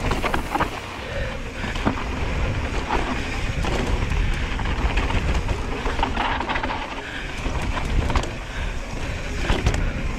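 Mountain bike riding over a dirt trail: tyres rolling over dirt and rocks, the bike rattling with irregular clicks and knocks, and wind buffeting the microphone with a steady low rumble.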